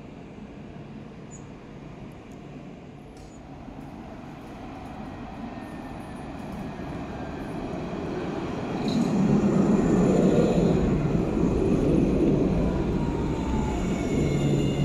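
Alstom Citadis low-floor tram approaching and passing close by on its rails. The rumble grows steadily louder and is loudest about two-thirds of the way through as the tram rolls past, with a faint whine sliding down in pitch.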